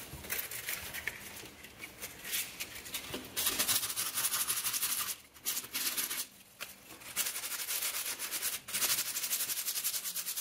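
Sandpaper, 80 grit, rubbed by hand over a hardened epoxy putty patch on a vinyl window frame, knocking down its edges: quick back-and-forth rasping strokes. The strokes are softer at first, turn brisker about three seconds in, and break off for a couple of short pauses.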